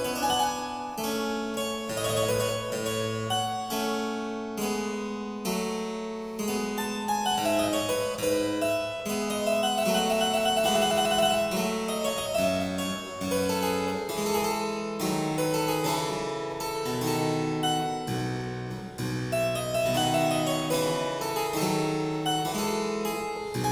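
Instrumental background music: a steady stream of quick, crisp notes over a moving bass line.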